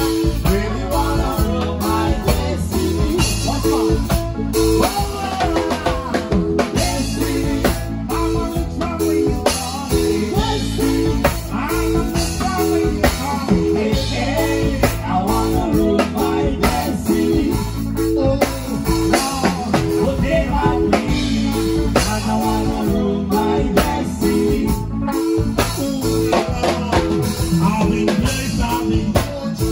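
Live band playing an instrumental reggae-style groove: drum kit, a steady bass line and rhythmic chord stabs on guitar.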